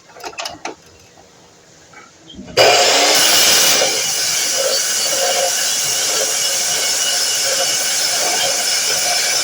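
DeWalt miter saw's motor switching on about two and a half seconds in and running steadily, loudest for the first second or so.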